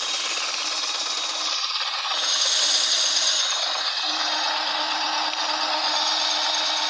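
Cordless drill/driver running steadily, spinning a thin steel rod clamped in its chuck, with a metallic rattle from the rod; a low steady hum joins about four seconds in.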